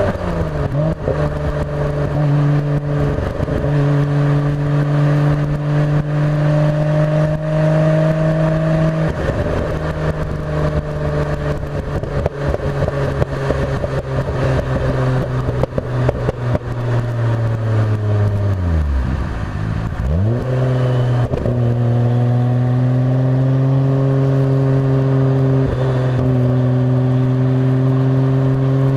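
Nissan Skyline GT-R R33 V-Spec's twin-turbo straight-six running at steady revs under way. About two-thirds through the note falls slowly to a low point, then quickly picks back up and holds steady again.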